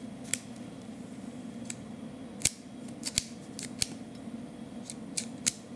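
Irregular small, sharp clicks, about ten of them, from a 1:3.5-scale miniature Mauser 98k carbine as it is handled and turned in gloved hands. They sound over a steady low hum.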